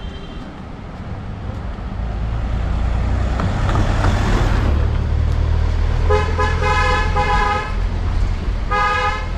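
A motor vehicle's engine rumbling close by, then a horn honking: a long honk about six seconds in and a short honk near the end.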